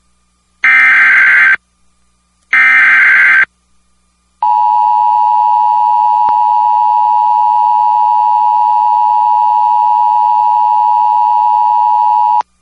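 Emergency Alert System SAME header: the last two of its three one-second bursts of digital data tones, then after a gap of about a second the steady EAS attention tone, held for about eight seconds and cutting off just before the end. Together they open a National Weather Service severe thunderstorm warning.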